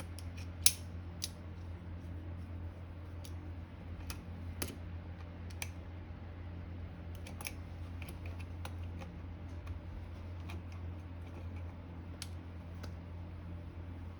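Scattered small clicks and scrapes of hand tools working on an old electric motor's parts, with one sharper click about a second in, over a steady low hum.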